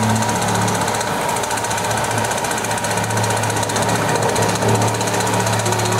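Road-repair machine pounding rapidly and steadily over the hum of an engine.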